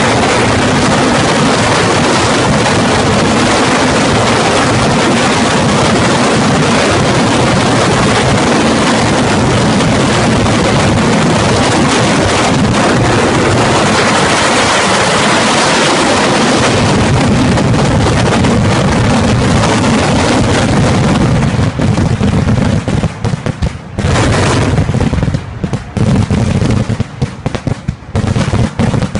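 Fireworks display: a dense barrage of bursts whose reports run together into one continuous crackling din. About 22 s in it breaks up into separate sharp bangs with short gaps between them.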